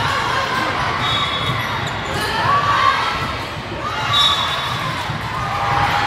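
Volleyball play on a gym court: short squeaks from sneakers on the floor and a ball bouncing, over a steady murmur of spectators.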